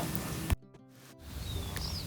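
Faint background noise broken by a click about half a second in and a brief drop to near silence, like an edit between two takes. A few faint high chirps come near the end.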